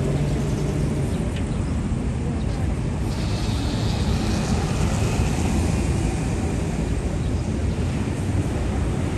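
City street ambience: a steady low rumble of road traffic, with a higher hiss swelling for a few seconds about three seconds in.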